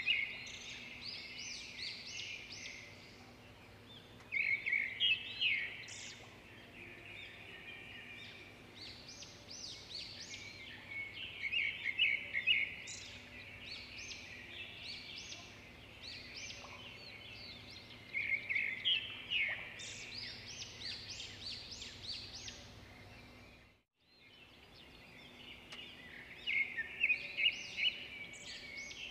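Songbirds singing in leafy woodland: bouts of rapid, high chirping song come every few seconds over a faint steady background. The sound cuts out completely for a moment about three quarters of the way through.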